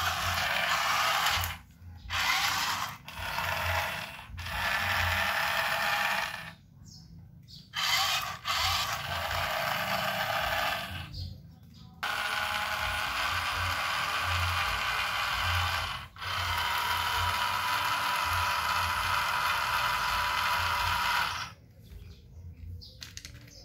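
Toy dump truck's small electric motor and plastic gears whirring as the dump bed tilts up, stopping and starting several times with short pauses.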